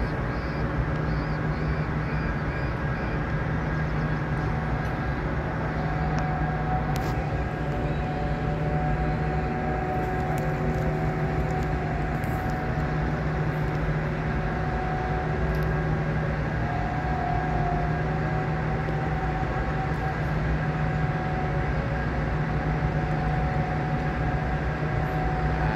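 Steady low drone of a cargo ship's machinery while its deck crane hoists a tween-deck pontoon, with a faint steady whine joining about six seconds in.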